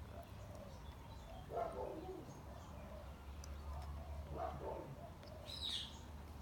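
Birds calling: low, repeated cooing calls, two of them louder, and a brief high call near the end, over a steady low hum.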